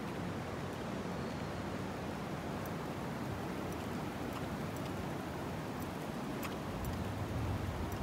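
Swollen, fast-flowing river in flood after a typhoon, rushing with a steady noise; a low rumble swells briefly near the end.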